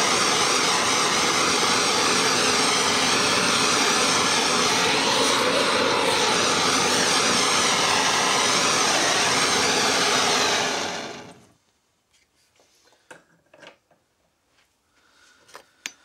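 Gas blowtorch flame burning with a loud, steady hiss while heating a phosphor bronze boiler water-gauge fitting for silver soldering. The torch is shut off about eleven seconds in, and a few faint clicks and taps follow.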